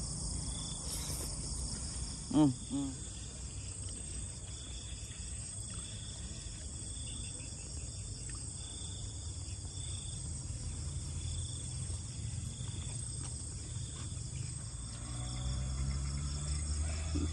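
Night insects, crickets among them, chirping in a steady chorus of regular high pulses, over a low hum that grows a little stronger near the end. A short murmur of a voice comes about two seconds in.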